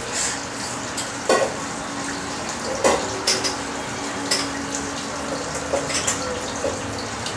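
An animal sneezing: several short, sharp sneezes at irregular intervals over a steady rushing hiss.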